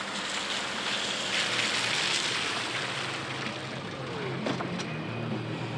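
Subaru Forester driving up and passing close, its tyres hissing on wet, slushy pavement over a low engine hum; the hiss swells about two seconds in, then eases off.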